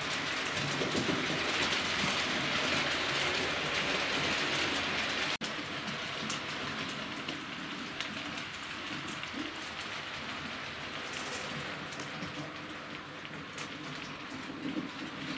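Model train running on layout track: a steady rattling hiss of wheels on rail joints and points. It is loudest in the first few seconds, breaks off for an instant about five seconds in, then carries on a little quieter.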